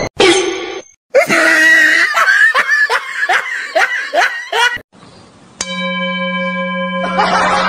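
A person laughing in a quick run of about ten short bursts, lasting nearly four seconds, followed by a steady held tone.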